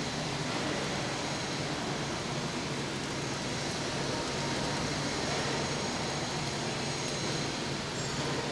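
Electric arc welding on a large steel roller coaster track tube: a steady crackling hiss from the arc, with a low steady hum beneath it.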